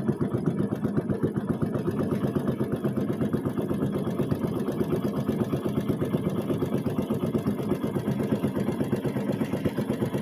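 Small boat engine running steadily with a fast, even chug.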